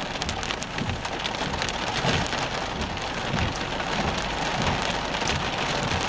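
Rain pelting a vehicle's windshield and roof, heard from inside the car: a dense, steady patter of drop strikes.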